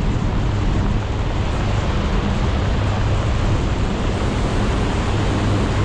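Steady wind rushing over the camera microphone during a tandem parachute descent under an open canopy.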